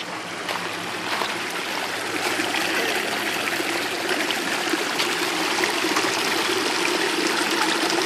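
Water from a pool's rock waterfall splashing steadily down into the pool, growing a little louder over the few seconds.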